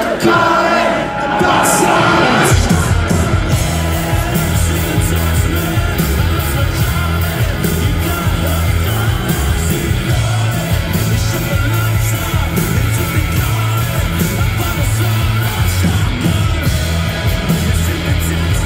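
Live rock band heard from the crowd, with electric guitars, bass, drums and singing. About two and a half seconds in, the full band with heavy bass and drums kicks in under the vocals.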